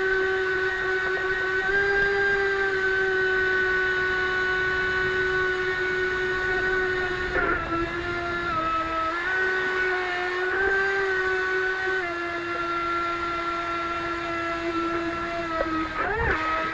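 Motor and jet drive of a scale RC mini jet boat running under way, a steady high whine heard from on board the hull. Its pitch dips and rises a little several times as the throttle changes.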